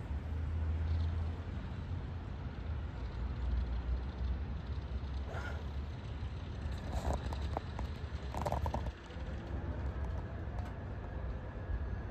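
2016 Haulotte electric boom lift running with its boom raised: a steady low rumble, with a faint thin whine coming in about halfway and a few short clicks.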